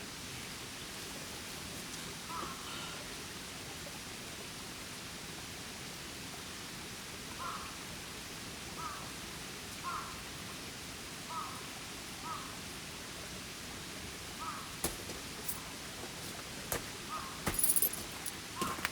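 Steady rush of a river flowing over stones, with a bird giving short calls, one at a time, about nine times. Several sharp clicks and knocks come near the end.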